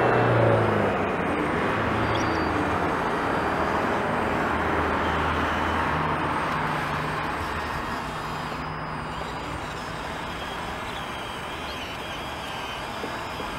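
Road traffic passing on a nearby road: steady tyre noise with a low engine hum from a passing van. The hum fades out about eight seconds in and the noise eases off.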